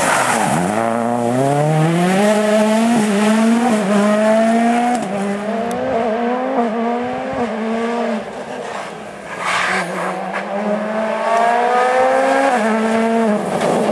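Ford Fiesta RS WRC rally car braking and changing down for a hairpin, then accelerating hard away. The engine note climbs in pitch through several quick upshifts, fades somewhat as the car goes farther off, then climbs again before easing off near the end.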